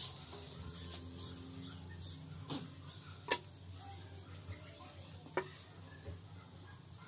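Small clicks, taps and rustles of hands handling a roll of double-sided tape and scissors, with a few sharper clicks, the loudest about three seconds in.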